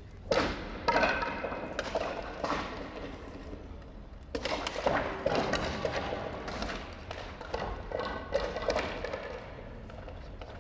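Sword-art performers' feet thudding on a wooden hall floor in a string of sharp, irregular strikes, mixed with short shouted cries, all echoing in a large hall.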